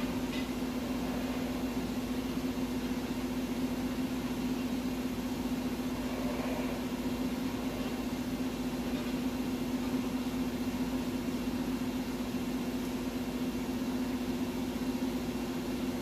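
Large engine lathe running at low spindle speed, a steady hum from its motor and gear drive with one strong low tone, while its chuck slowly turns to twist an aluminum extrusion.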